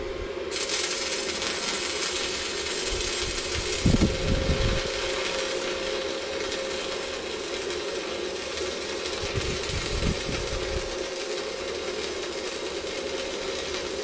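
Stick-welding (MMA electrode) arc from a STAHLWERK MIG 135 M IGBT inverter welder, struck about half a second in and then burning with a steady, even hiss as a bead is laid. A few dull bumps, the loudest about four seconds in.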